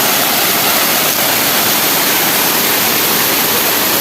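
Waterfall water rushing and splashing in a loud, steady roar of noise.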